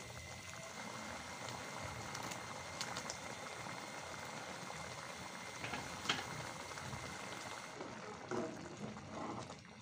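Spinach and red lentil dal simmering in a pan, a steady bubbling, with a few light clicks of a spatula against the pan.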